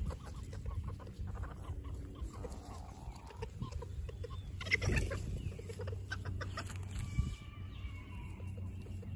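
Scattered small clicks and rustles of dry straw stirred by young angora rabbits, with bird calls in the background. A louder knock comes about five seconds in.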